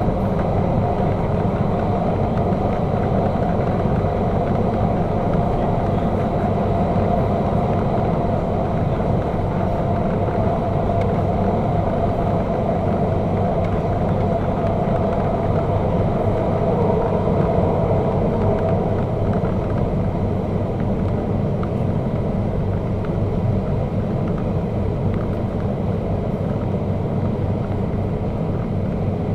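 MTR K-Train electric multiple unit running at steady speed through the Eastern Harbour Crossing tunnel: a continuous rumble with a low hum and a faint, slightly wavering mid-pitched tone over it.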